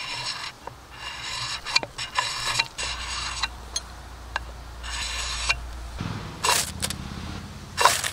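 Ferrocerium rod scraped hard along the spine of a Hemlock ARES knife, throwing sparks onto wood shavings. There are about seven strokes, most under a second long, with a few sharp clicks between them; the last two are shorter and louder.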